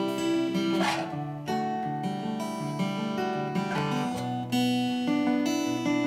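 Steel-string acoustic guitar being played: picked notes ring over a stepping bass line, with two short scratchy strums about one and four seconds in.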